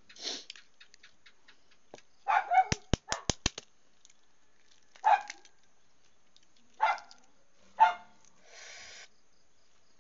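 A dog barking in short single barks a second or two apart. A quick run of sharp clicks comes soon after the first barks, and a brief hiss near the end.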